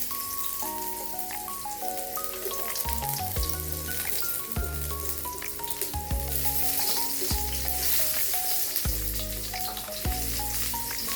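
Sliced shallots, garlic and red chili sizzling in hot oil in a frying pan, with background music playing over it.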